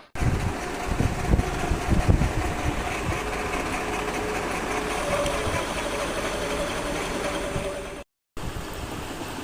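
Bolt-making machinery running steadily with a mechanical drone, with a run of heavy low thuds in the first two seconds. The sound cuts out briefly about eight seconds in.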